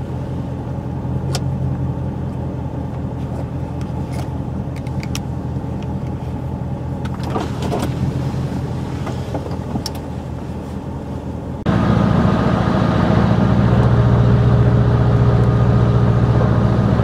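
Car interior noise while driving: a steady engine and road hum with a few sharp clicks. About two-thirds of the way through it switches abruptly to a louder, steadier drone with tyre hiss on a wet highway.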